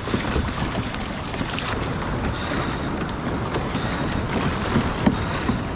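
Wind rumbling on the microphone over the wash of water around a kayak, with a few light splashes.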